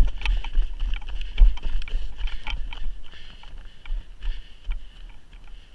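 A person's running footsteps on snow, heard up close from a body-worn camera: a quick run of thumps that grows quieter and sparser after about three seconds as the pace eases.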